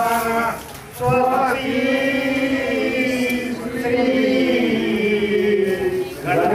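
A man chanting Hindu wedding verses over a microphone in long, drawn-out held notes. A short break comes about half a second in, then one long wavering phrase, and a new phrase begins near the end.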